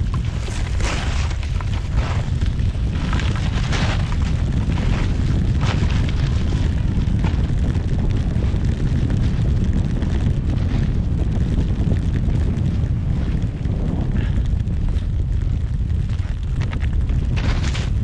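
Wind buffeting the microphone of a pole-mounted camera as a low, steady rumble during a ski run through deep powder, with short hisses of the skis cutting through the snow every second or two.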